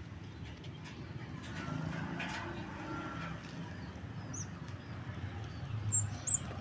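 Quiet outdoor background with a steady low hum, and a few short, high chirps in the second half.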